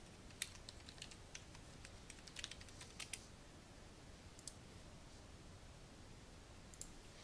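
Faint keystrokes on a computer keyboard typing a short name in quick irregular runs, then a few isolated clicks over a quiet room.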